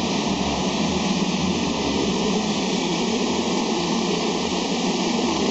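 GL 210 BOPP tape slitting machine running: a steady mechanical whir and hiss over a low hum.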